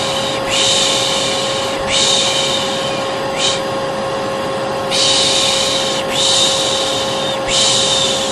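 Hair dryer running steadily with a constant hum, overlaid by a repeated human 'pışş' shushing: about six long hisses of roughly a second each, in pairs and threes, with one short one. It is the white-noise sound used to calm a colicky baby.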